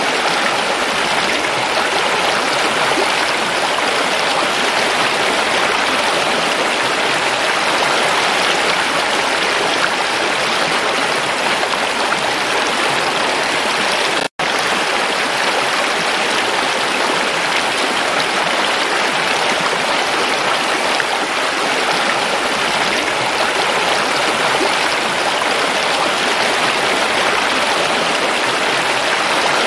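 Shallow rocky stream rushing and splashing over stones: a steady, even rush of water that cuts out for an instant about halfway through.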